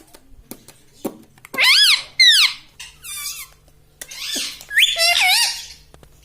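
Pet parrot giving a run of high squeaky calls that swoop up and down in pitch, about five of them in quick succession after a few faint clicks.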